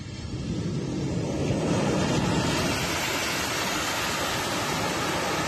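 Boeing 737-200 cargo jet's engines at takeoff power as the plane rolls fast past close by: a rushing jet noise that grows louder over the first two seconds and then holds steady.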